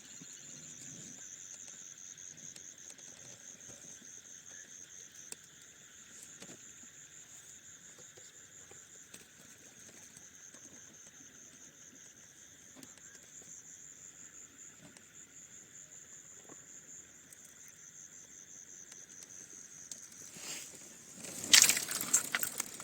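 Night insect chorus, crickets trilling steadily in a high, even chirr. Near the end a loud rustling, crackling burst lasts about two seconds.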